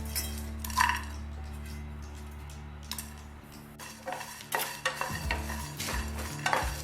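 Spoon stirring and scraping whole spices and cashews as they dry-roast in a pan, with scattered clinks and scrapes that grow busier in the second half, over a steady low hum.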